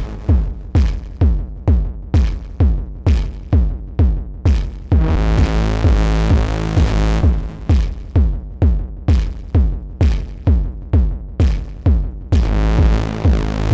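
Electronic music from a Eurorack modular synthesizer, mostly Schlappi Engineering modules, played live. Percussive notes repeat about twice a second, each with a quickly falling pitch, over a deep steady bass. About five seconds in, and again near the end, the hits give way to a sustained buzzing chord.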